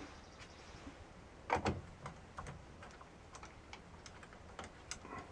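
Small clicks and taps of a screwdriver and a wire end working a plastic screw terminal on a solar charge controller, with two louder clicks about a second and a half in.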